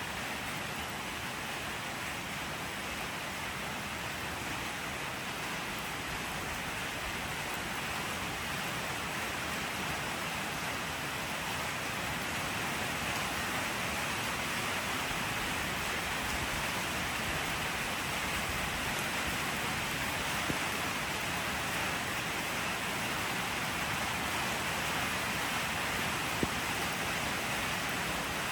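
Steady, even hiss of rain falling, with a couple of faint ticks near the end.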